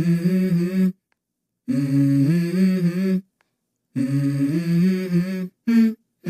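Low hummed vocal melody in held phrases about one and a half seconds long, the pitch stepping between a few notes, with short gaps of silence between the phrases.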